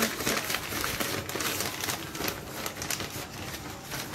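Sheets of newspaper rustling and crinkling as a glass oil dispenser bottle is unwrapped from them by hand, a dense run of quick crackles.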